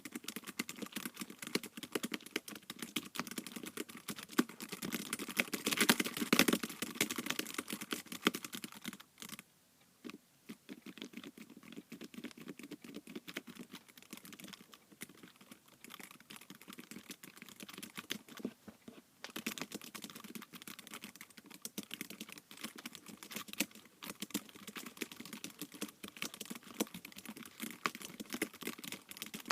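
Fast typing on an iPad keyboard: a dense run of key clicks, loudest about six seconds in. The typing stops briefly about ten seconds in, stays softer for several seconds, then picks up again.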